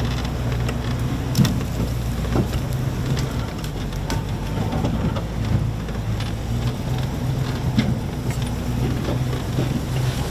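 Off-road vehicle's engine running steadily as it drives over rough ground: a low hum under a constant rushing noise, with scattered knocks and rattles.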